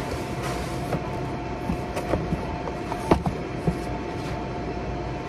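Big-box store ambience: a steady hum with a faint held tone underneath, and a few sharp clicks and knocks from a cardboard box and other items being handled, the loudest about two and three seconds in.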